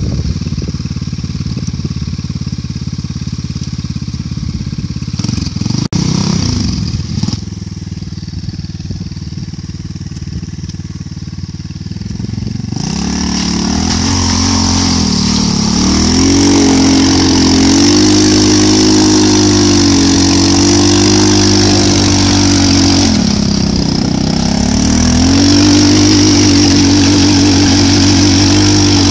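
A two-wheel-drive off-road motorcycle's small engine runs low at first. About a dozen seconds in it revs up hard and stays under heavy load as the bike churns through mud and water and climbs a bank, its pitch wavering up and down. The revs dip briefly and rise again near the end.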